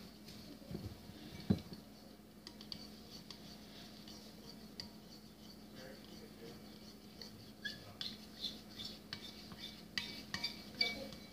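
A utensil stirring glue mixture in a ceramic bowl: faint scrapes and light clicks against the bowl, with one sharper knock about a second and a half in and quicker ticks in the last few seconds.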